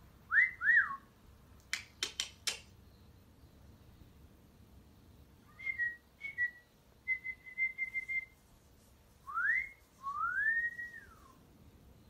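Young African grey parrot whistling: two quick rising-and-falling whistles at the start, then a few sharp clicks, a string of short whistled notes in the middle, and near the end a rising whistle followed by a long one that rises, holds and falls.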